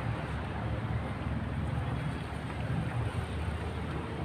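Car engine idling steadily, run to push flushing water through the engine block while the upper radiator hose is disconnected.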